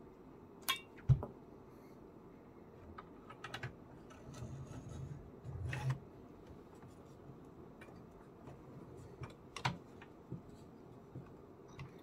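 Scattered clicks and knocks as an ASUS Dual RTX 3060 graphics card and its metal bracket are fitted into an Aorus Gaming Box eGPU enclosure. The loudest knock comes about a second in, with duller handling bumps around four to six seconds in.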